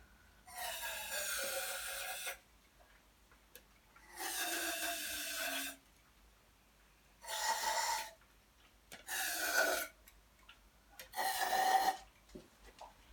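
Aerosol can of WD-40 spraying down the spark plug holes into the cylinders of a Kawasaki ZXR engine, five short hissing bursts with pauses between, to lubricate the bores before the engine is turned over.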